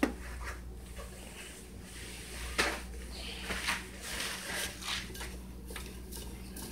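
A handful of light knocks and taps from handling the mixing bowl of rub and the foil pan of ribs on a kitchen counter, the sharpest a little over two seconds in, over a low steady hum.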